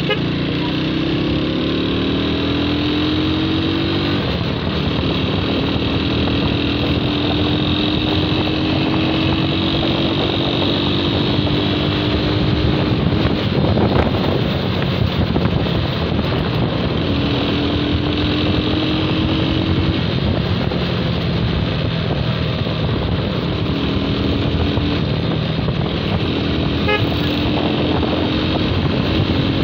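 Motorcycle engine running at road speed, with wind rushing over the microphone. The engine note climbs slowly several times as the bike accelerates.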